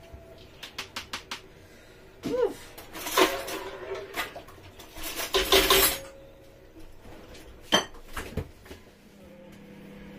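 A spoon tapping and scraping against a bowl and a steel cooking pot as ground seasoning is spooned in. First comes a run of quick light taps, then two longer stretches of clattering and scraping, and a sharp clink near the end.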